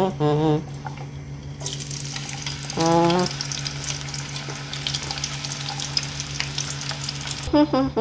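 French fries frying in hot oil in a pan: a crackling sizzle starts about two seconds in as the fries go into the oil and keeps up until near the end. Snatches of a sung tune come at the start, around three seconds in and near the end, and are louder than the sizzle.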